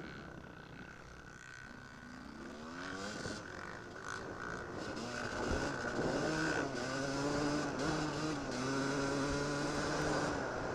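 Off-road enduro motorcycle engine picked up by a camera on the bike. The engine revs up as the bike accelerates, then holds a high, steady note with brief dips.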